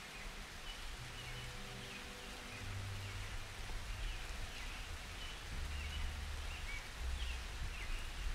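Quiet nature ambience: an even rain-like hiss with short bird chirps repeating high above, over low held notes that shift in pitch every second or so, like a soft background track.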